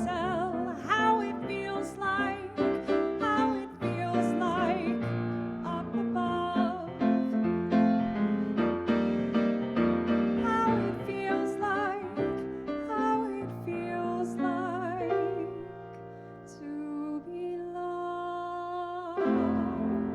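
Closing passage of a song on piano, with a wavering melody line over it carrying vibrato. The melody thins out to soft held chords about three-quarters of the way through, then fills out again near the end.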